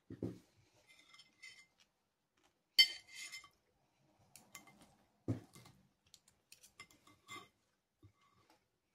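Knife and fork scraping and clinking on a plate as food is cut, in scattered short strokes. One sharp ringing clink about three seconds in is the loudest, with another knock a couple of seconds later.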